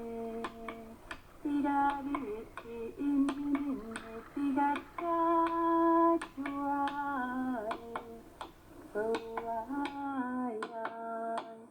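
Background music: a melody of held notes that glide between pitches, over a steady beat of finger snaps.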